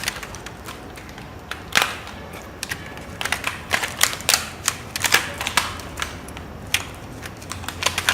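Irregular sharp clicks and taps from hand work on a DC motor armature, as copper coil wire and slot insulation are pressed into the armature slots.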